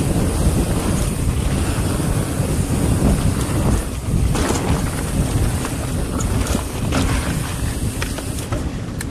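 Wind buffeting the microphone and tyre roar from a mountain bike rolling fast down a dirt trail, a steady low rumble broken by a few sharp clicks and rattles from the bike.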